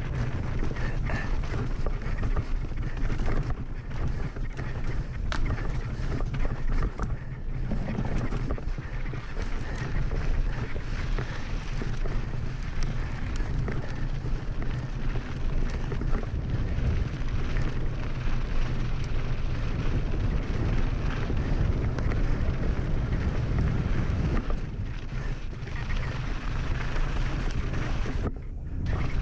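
Wind buffeting the microphone and mountain-bike tyres rolling fast over loose gravel and dirt, with scattered clicks and knocks from stones and the bike, and a brief drop in the noise near the end.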